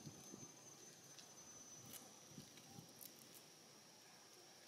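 Near silence: faint outdoor ambience with a thin, steady high-pitched whine and a few soft rustles and clicks.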